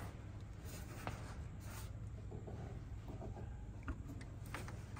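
Faint rubbing and small clicks of a handheld phone being moved and handled, over a steady low background hum.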